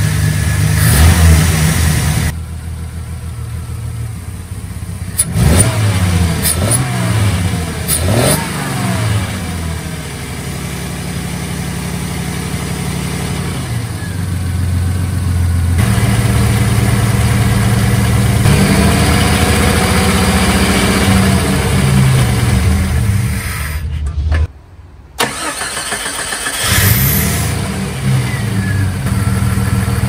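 Jeep Comanche's 4.0-litre Renix-injected straight-six running and being blipped at the throttle several times, its pitch rising and falling with each rev. It is being tested after a throttle body cleaning and throttle position sensor adjustment meant to cure a misfire and rough, surging idle. There is a short gap in the sound about two-thirds of the way through.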